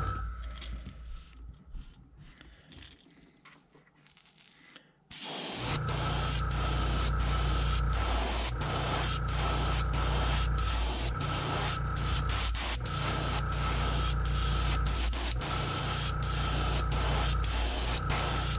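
Airbrush spraying paint onto a crankbait in long passes: a steady air hiss with a thin whistle-like tone, broken by short pauses every two or three seconds as the trigger is let off. It starts about five seconds in, after a few quieter seconds of handling.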